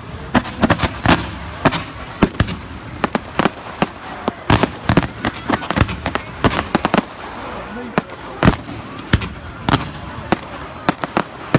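Fireworks going off: a rapid, irregular string of sharp bangs and cracks, several a second, over a steady background rumble.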